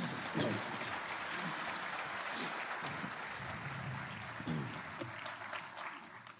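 Audience applauding, fairly quiet, with a few voices among it; it fades out near the end.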